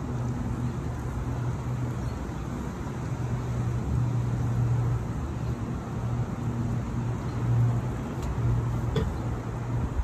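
Street traffic noise with a steady low engine hum that swells and eases a few times.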